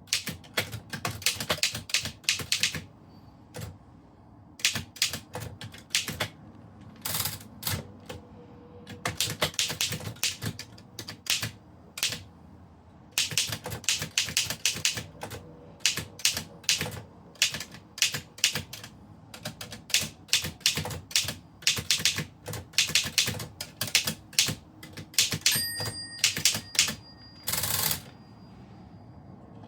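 Typewriter being typed on: fast runs of key strikes with short pauses between them. Near the end a bell rings briefly, followed by a longer sliding sound, typical of the margin bell and a carriage return.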